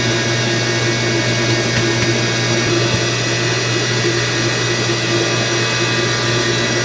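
Steady, loud hum and whir of a running electric pump motor, with a strong low hum and several steady higher tones and no change in level.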